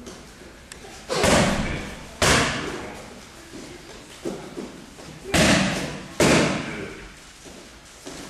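Kicks landing on a handheld focus pad: four loud smacks in two pairs, about a second apart within each pair, each fading out over most of a second.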